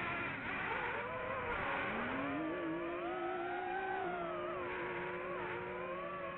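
Off-road race vehicle engines revving, with several whining pitches rising and falling at once; one climbs about two seconds in and then holds steady.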